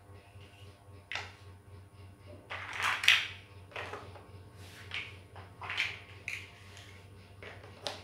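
Plastic toy building bricks clattering and clicking as they are picked from a pile and pressed together, in a string of short knocks with the loudest about three seconds in. A low steady hum runs underneath.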